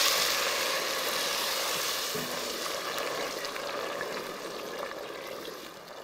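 Hot water poured from a kettle into a pot of rice just fried in butter and oil, hissing as it meets the hot pot. The hiss is loudest at first and fades steadily as the pot cools.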